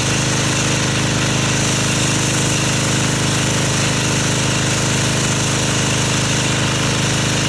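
Pressure washer running steadily while rinsing snow foam off a car: a constant motor and pump hum under the hiss of the spray.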